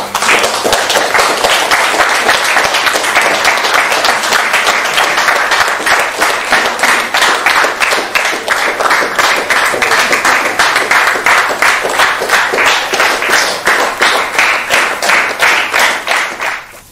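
A small crowd applauding, clapping together in an even rhythm, then cutting off near the end.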